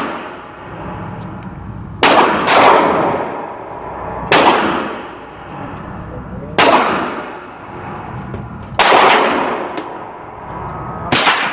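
A series of single gunshots at a shooting range, roughly every two seconds with one quick pair, each trailing off for about a second.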